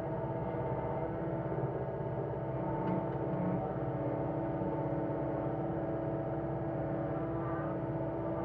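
John Deere 325G compact track loader's diesel engine running at a steady speed, heard from inside the cab with an even drone.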